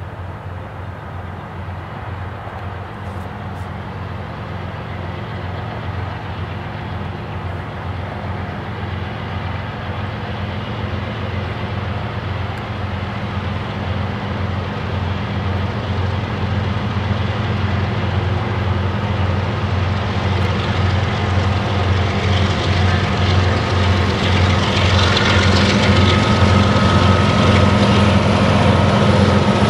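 Three diesel-electric freight locomotives, an EMD SD70M-2 leading a GE ES44AC and an ET44AC, working under power as the train pulls away. A steady low engine throb grows steadily louder as the units come closer, with rising wheel and rail hiss over the last several seconds.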